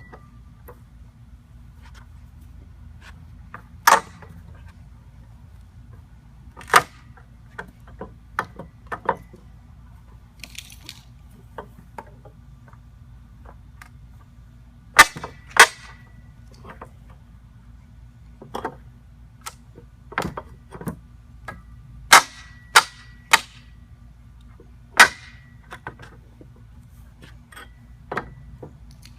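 Irregular sharp cracks and knocks, about a dozen loud ones, some followed by a brief metallic ring: an Eizzy Bar Pro pallet-wrecker bar prying the boards of a wooden pallet loose. A steady low hum runs underneath.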